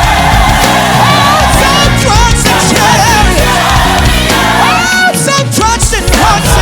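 Live gospel song with a lead singer and choir over a full band, with bass and drums.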